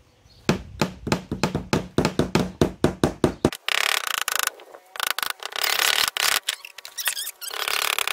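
Two hammers tapping small nails into thin wooden birdhouse panels, quick light blows about four or five a second. About halfway through the blows give way to a dense rattling, scraping noise that comes and goes in several stretches.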